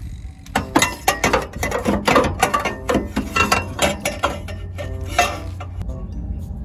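Stainless steel exhaust pipe clinking and knocking against metal as it is worked into place under a Suzuki Jimny's frame: a run of sharp metallic taps, several a second, some with a brief ring.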